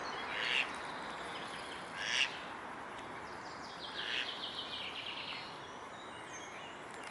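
Bird calls: a short high chirp, a second longer one about two seconds in, then a fast run of high notes from about four seconds in, over a steady background hiss.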